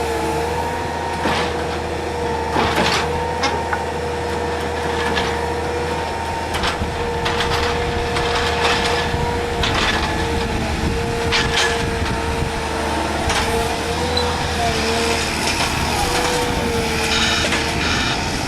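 Excavator running with a steady hydraulic whine that wavers slightly in pitch, while its hydraulic rotator attachment handles concrete railway sleepers, giving scattered clanks and knocks.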